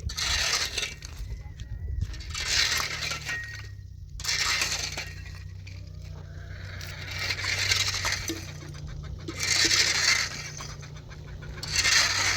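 Repeated scraping strokes, each about a second long and coming roughly every two seconds, over a low steady hum.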